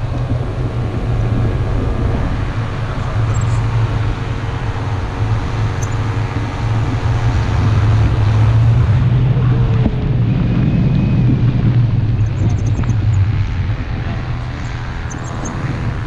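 Wind from a paraglider's forward flight buffeting the camera microphone: a loud, steady low rumble of wind noise. It grows louder about eight seconds in and eases a little near the end.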